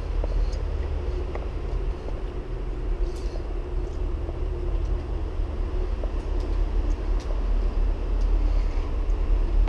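Steady low rumble of road traffic carried through a concrete culvert, with a few faint clicks and taps scattered through it.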